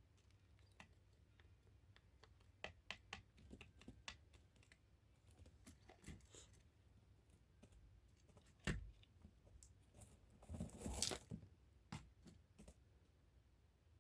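Quail moving about: scattered light pecking clicks and taps, a thump about nine seconds in and a brief scratching rustle around eleven seconds. No call is heard.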